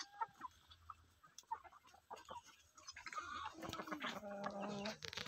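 A flock of chickens, mostly roosters, with scattered short clucks and scratching. About three and a half seconds in, one bird gives a longer, steady call lasting about a second.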